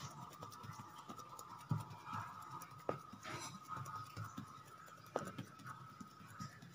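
Hands knocking back risen yeast dough, fingertips pressing and patting into it to push out the fermentation gas: faint, soft, irregular pats with a few sharper taps.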